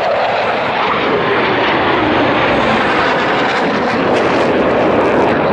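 Loud, steady jet noise from six Boeing F/A-18 Hornets flying past low in formation and moving away.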